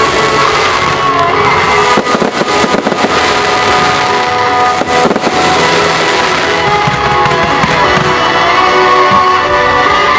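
Fireworks bursting over music, with a rapid cluster of bangs about two to three seconds in and more around five seconds.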